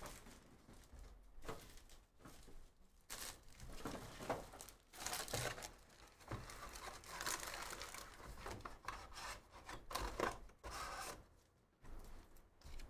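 Foil wrapper of a Panini Phoenix football card pack crinkling and tearing as it is opened, with cards rustling and rubbing as they are handled. Faint, irregular crackles and rustles.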